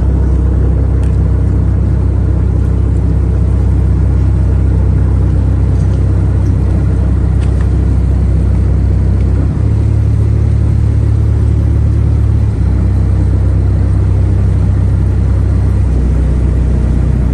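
Motorboat engine running steadily with a deep rumble; its note changes for a few seconds midway.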